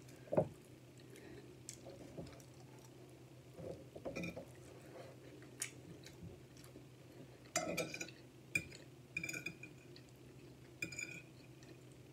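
Metal fork clinking and scraping against a plate while cutting into and picking up a piece of steak: a loud knock just after the start, then scattered short clinks and brief squeaky scrapes, busiest in the second half.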